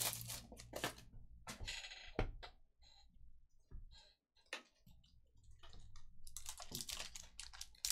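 A foil trading-card pack wrapper being handled, with scattered light clicks and rustles, then dense crinkling from about six seconds in as the pack is worked open.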